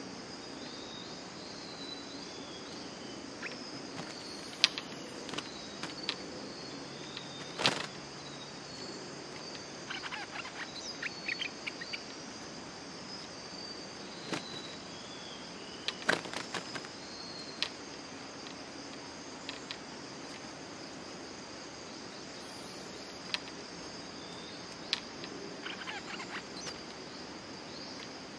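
Steady high-pitched insect chorus, with scattered short bird chirps and a few sharp clicks, the loudest about 8 and 16 seconds in.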